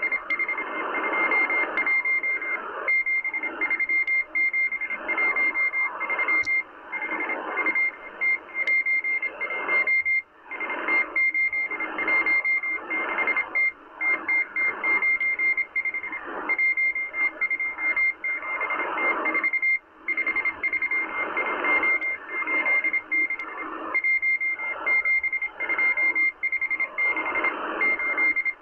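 Morse code from the M12 Russian spy station received on a Kenwood R-1000 shortwave receiver: a single high tone keyed on and off in dots and dashes, over a constant hiss of shortwave static.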